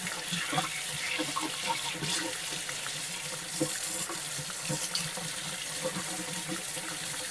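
Kitchen faucet running steadily into a sink while carrots are washed by hand under the stream, with small splashes.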